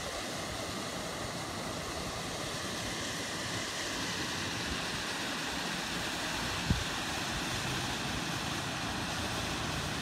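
Steady rush of water running over a rocky stream bed and down a small waterfall. One brief low thump about two-thirds of the way through.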